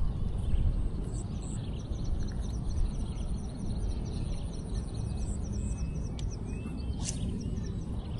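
Wind blowing across the microphone, with a bird giving a fast run of short high chirps, about five a second, for several seconds.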